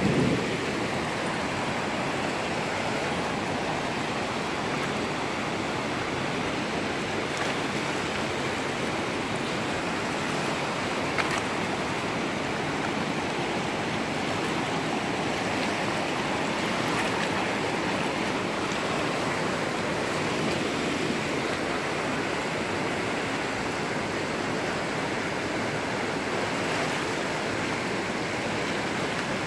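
The Tiber's fast, churning white water rushing against a stone embankment: a steady rushing noise.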